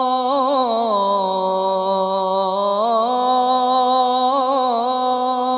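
A muezzin's solo voice calling the Fajr adhan, drawing out the last word of 'ashhadu anna Muhammadan rasūl Allāh' in one long unbroken melismatic note. The note has quick trills just after the start, dips lower about a second in, rises back at about three seconds, and wavers again near the end.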